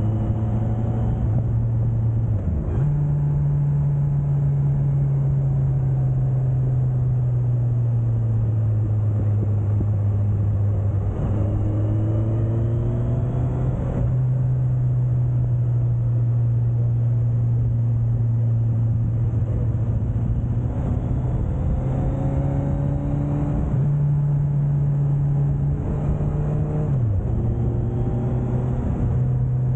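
Suzuki GSX1250FA's inline-four engine running under way, heard from the bike over a steady rush of wind; its pitch climbs three times as the rider accelerates, with sudden drops in between.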